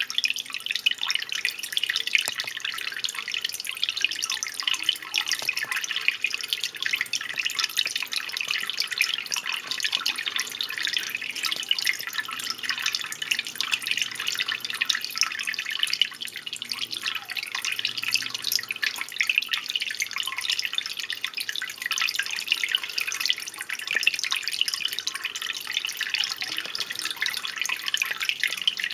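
Water in a turtle tank, trickling and dripping steadily as a dense, unbroken patter of small splashes.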